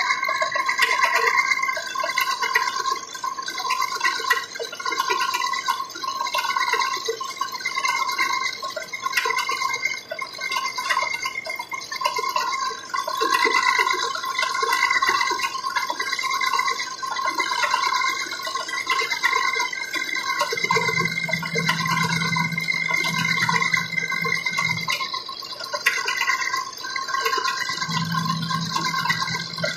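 Gear-cutting machine running while cutting a worm gear: a steady mechanical whine with several fixed tones that waver slightly. A lower hum joins twice near the end, for about four seconds and then about two.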